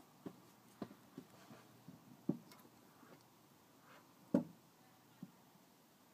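About half a dozen soft, irregularly spaced knocks and clicks over quiet room tone. The loudest comes about four seconds in.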